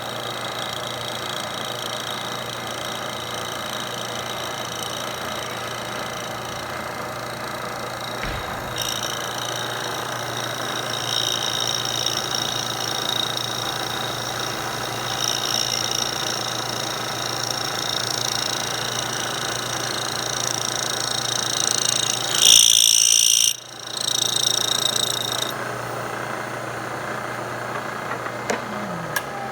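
Milling machine cutting a solid aluminum billet: the spindle runs steadily while the cutter gives a high whine that comes and goes, loudest for about a second about two-thirds of the way through, then drops away briefly.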